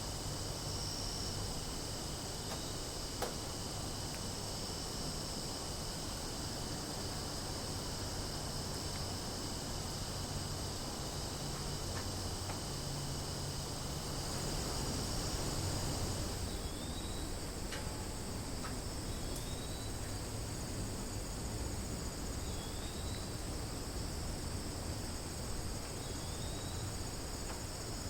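Cicadas buzzing in a steady, high-pitched drone. A little over halfway through the sound changes, and a short chirp then repeats about every three seconds over the buzzing.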